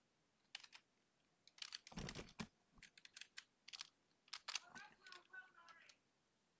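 Typing on a computer keyboard: faint key clicks coming in irregular quick clusters.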